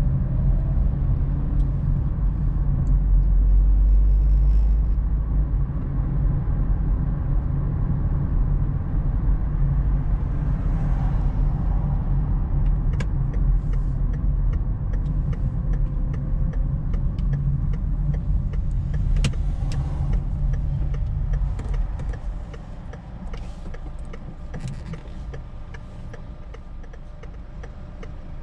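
Car interior road noise while driving: a steady low rumble of engine and tyres that drops away about three-quarters of the way through as the car slows to a stop in traffic, leaving a quieter idle with a few faint ticks.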